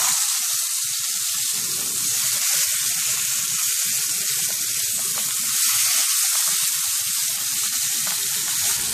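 Masala-coated whole fish sizzling in hot coconut oil in a frying pan as the pieces are laid in; a steady, loud frying sizzle.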